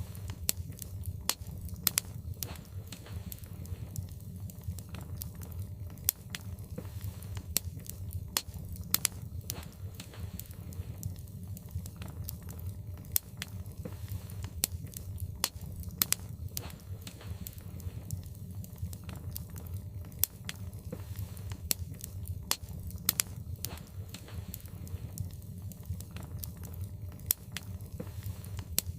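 Wood fire burning in a fireplace: irregular sharp crackles and pops from the logs, several a second, over a steady low rumble.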